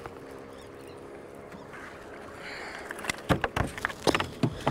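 About three seconds of faint steady background, then a run of sharp, irregular knocks and thumps as a hooked speckled trout is swung aboard a fishing boat and flops on the deck.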